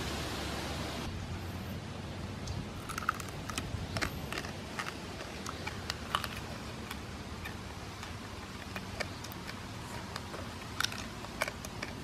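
A steady hiss that cuts off about a second in, then irregular sharp clicks and crunches of a man biting, chewing and tearing at a charcoal-grilled dove held in his hands.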